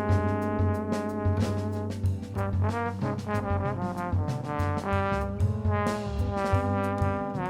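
Music: a horn melody over bass and drums.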